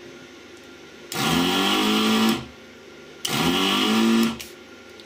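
Vacuum pump of an 80-watt desoldering iron switching on twice, about a second and a quarter each time, its motor hum rising in pitch as it spins up, sucking melted solder out of through-hole relay pins on a circuit board.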